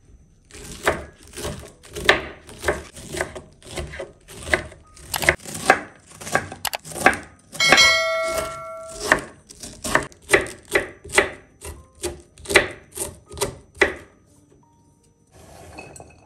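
Kitchen knife slicing a cabbage into thin shreds on a wooden cutting board: a steady run of crisp chops about two a second. About eight seconds in, a short chiming notification sound effect rings over the chopping. Near the end, a soft rustle as shredded cabbage is pushed off the board into a glass bowl.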